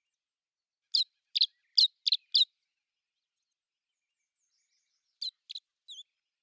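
A small bird chirping: a quick run of five sharp, high notes about a second in, then three fainter notes near the end.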